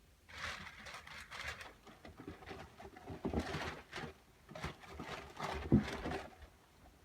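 Handling noise from a shoe box and its packaging: irregular rustling and light knocks in short bursts, with the sharpest knock near the end.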